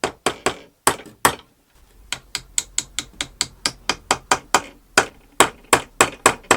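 Hammer tapping a wooden dowel into its drilled hole: a few strikes, a short pause, then a steady run of quick, sharp taps at about four a second.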